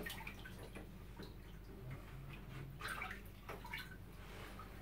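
Faint small splashes and drips of bathwater as a child moves about in a filled bathtub, over a low steady hum.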